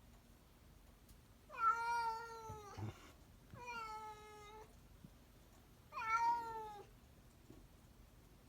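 Domestic cat meowing three times, each a drawn-out meow of about a second, the pitch rising slightly and then falling away.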